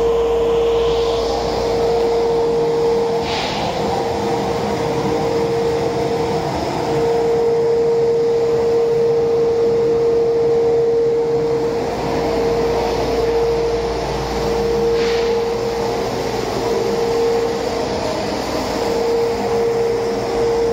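Thermo King TK270M diesel engine running steadily at idle on a test stand, with a steady whine over the engine note.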